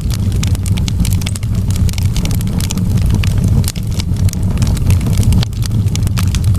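Wood fire in a fireplace crackling, with many quick, sharp pops over a steady low rumble.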